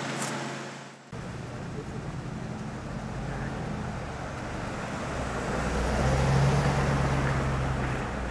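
Road traffic ambience: a motor vehicle's low engine hum swells to its loudest about six to seven seconds in, then eases off.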